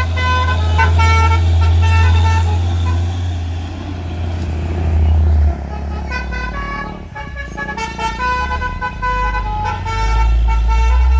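Heavy road vehicles running with a deep steady rumble, which eases off about halfway through and swells again near the end. Short horn notes sound over it again and again, changing in pitch.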